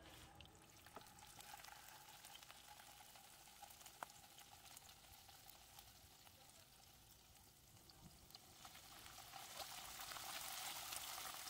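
Cubes of tofu frying in a little oil in a granite-coated pan: faint sizzling and crackling that grows louder over the last few seconds, with a single soft tap about four seconds in.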